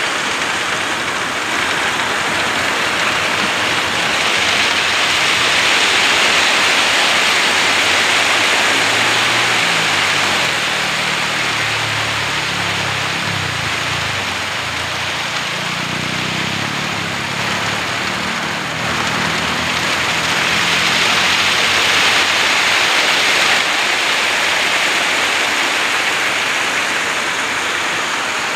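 Wet ready-mix concrete with coarse gravel sliding down a concrete mixer truck's chute, a steady rushing hiss that swells twice. The truck's engine runs underneath, with a low hum coming up in the middle.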